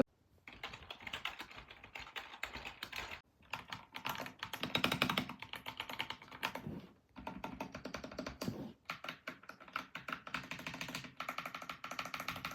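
Fast typing on computer keyboards in several runs of rapid key clicks with short pauses between them. The click sound changes partway through, as a cheap keyboard is compared with a Redragon K688 mechanical keyboard with linear switches.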